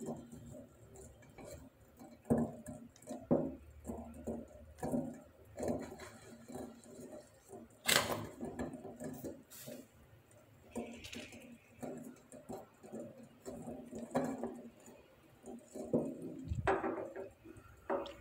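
Silicone spatula stirring thickened milk in a stainless steel pot: irregular soft scrapes and squelches, with a sharp knock against the pot about eight seconds in and another shortly after.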